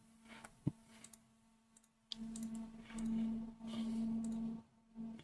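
Computer mouse clicking a few times, followed from about two seconds in by a steady low hum that swells and fades.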